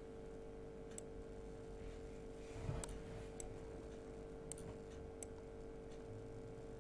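Faint computer mouse clicks, about six scattered over several seconds, over a steady faint hum.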